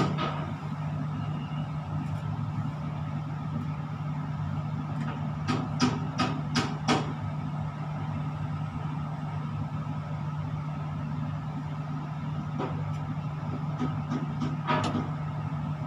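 Steady low machine hum inside a tower crane operator's cab. A quick run of four sharp clicks comes about five and a half seconds in, and a couple more near the end.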